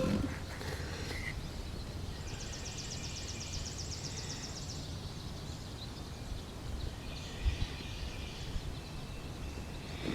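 Quiet outdoor ambience with a steady low rumble, and a bird's high, rapid trill about two seconds in, lasting a couple of seconds.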